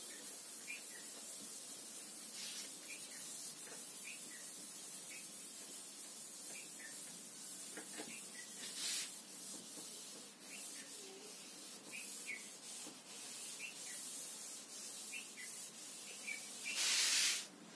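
Board duster rubbing across a chalkboard, wiping off chalk writing in long strokes, with a louder, harder wipe near the end.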